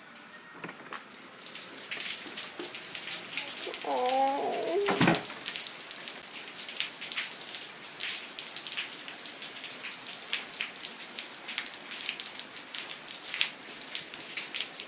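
Pouring rain, with many close, irregular drop hits pattering near the microphone. There is one short pitched cry about four seconds in.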